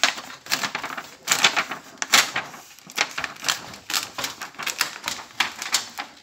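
Rapid, irregular crackling and clicking of a glued paper sheet inside an LED TV's backlight assembly being worked loose and peeled away, in quick clusters throughout.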